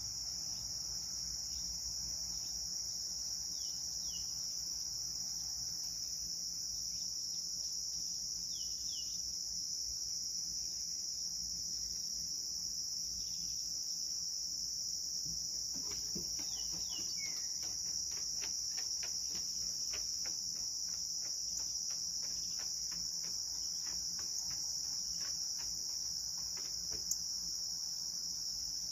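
Steady, high-pitched chorus of singing insects such as crickets, unbroken throughout, with a few short falling chirps over it now and then.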